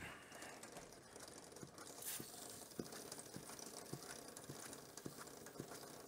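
Faint, even ticking of a motorcycle drive chain running over the rear sprocket as the wheel is turned slowly by hand, about two to three ticks a second, with a short hiss of aerosol chain lube being sprayed about two seconds in.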